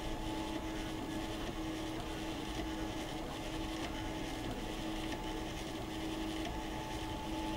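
FDM 3D printer running mid-print: a steady mechanical hum with a constant whining tone.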